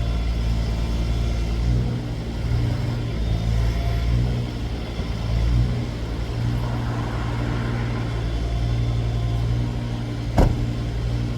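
Heavy machine's engine running steadily, with a single sharp knock about ten seconds in.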